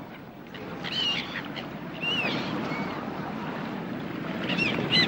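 Gulls calling over a steady wash of harbour water and wind noise: short curving cries about a second in, around two seconds, and a louder pair just before the end.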